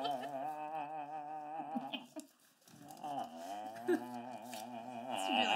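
A man humming a tune, a wavering melody with a short pause a little over two seconds in.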